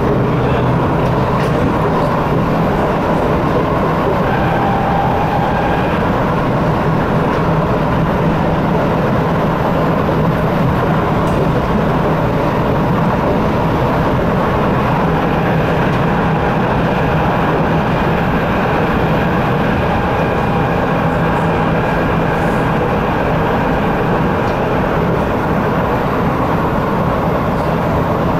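Steady running noise heard inside a C751B metro train car cruising between stations: a constant rumble of wheels on rail, with a faint whine coming and going.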